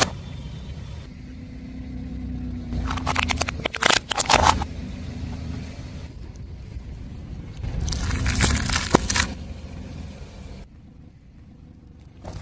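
A car tyre rolling over crunchy objects and crushing them, in two bursts of crackling and crunching, about three seconds in and again around eight seconds in, over the car's low steady rumble.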